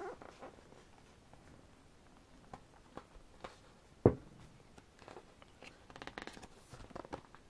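Pages of a large glossy photobook being handled and turned: soft paper rustling and small clicks, one sharp tap about four seconds in, and a page turning over with rustling near the end.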